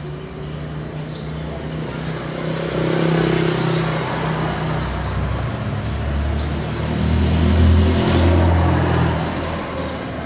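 Motor vehicle engine and road noise heard inside the cabin: a steady low rumble that swells about three seconds in and grows loudest around eight seconds before easing off.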